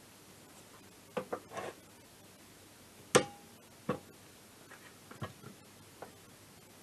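Hand tools and metal engine parts knocking and clinking on a scooter's transmission: a few light clicks, then a sharp metallic clank with a short ring about three seconds in, another knock a moment later, and faint ticks.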